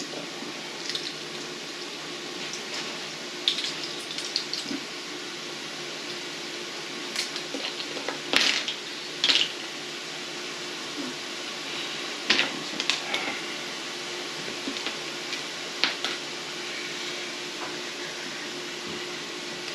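Small clinks, taps and clatters of measuring spoons, bottles and containers being handled on a kitchen counter, scattered over a steady hiss with a faint hum.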